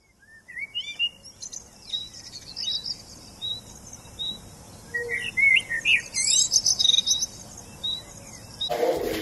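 Several songbirds singing together: short chirps and warbled phrases, with one bird repeating a short high note over and over.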